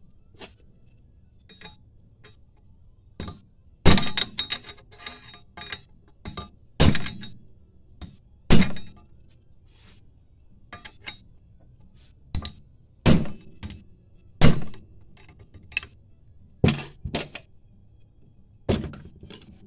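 Hammer blows on a wrench set against the lip of an oil pump pickup tube, driving the tight press-fit tube into a Melling high-volume oil pump. About a dozen sharp metallic hits, unevenly spaced, several with a short ring.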